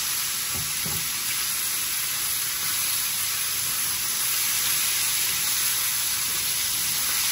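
Cut-up bacon sizzling steadily in a hot cast iron skillet as it fries.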